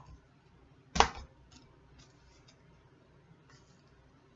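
Bath bombs and their wrapping handled by hand: one sharp knock about a second in, then a few faint light clicks.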